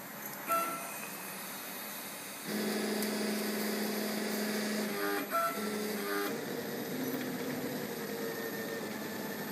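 CNC plasma table's stepper motors driving the gantry through a Mach3 test toolpath, starting about two and a half seconds in with a steady whine. The whine steps to new pitches and stutters briefly around the middle as the moves change. The motion is choppy, which the owner cannot yet explain.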